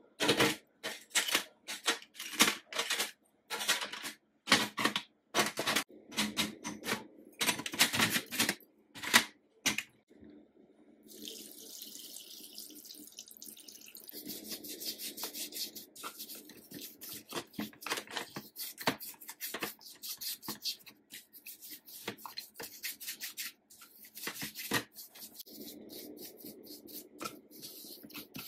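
Rusty sewing-machine parts clinking and clattering as they are handled in a steel tray for the first ten seconds or so. Then liquid is poured over them in a steady splashing stream, followed by brush scrubbing and small metal clinks in the wet tray.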